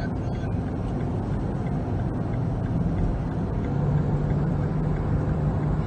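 Steady engine and road noise heard inside a moving car, a low continuous hum that swells a little about four seconds in.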